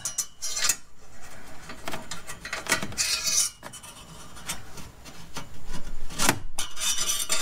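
Metal scraping and rubbing on an exhaust midpipe as a coupler clamp is worked onto a pipe joint by hand, with scattered clicks. There is a louder rasping stretch about three seconds in and a sharp metallic knock near the end.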